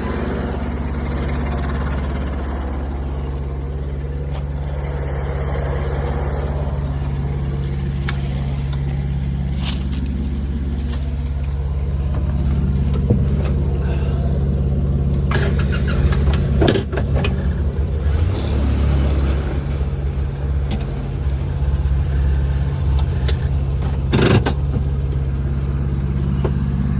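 Engines of a mini excavator and a Polaris Ranger 700 side-by-side running steadily, as the side-by-side is backed up near the working excavator. Several sharp knocks are scattered through, the clearest near the end.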